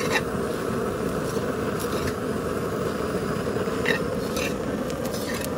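A steel spoon stirring and scraping dry puffed rice around a metal pan, with a few sharper scrapes and clinks against the pan, over a steady rushing noise.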